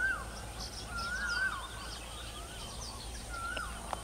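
Wild birds calling. One repeats a short whistled call that rises and dips, about four times at roughly one-second intervals, over fainter high chirps from other birds and a steady low background noise. A single sharp click comes near the end.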